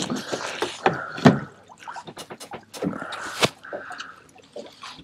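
Fishing tackle being handled at a boat's rod holders and bait board: a run of small clicks and knocks, with louder knocks about a second in and again near the middle, and brief rubbing sounds in between.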